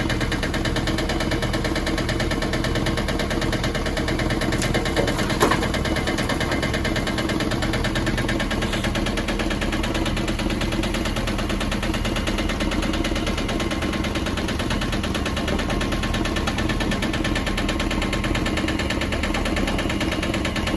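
Excavator's diesel engine running steadily while digging, with a couple of sharp knocks about five seconds in.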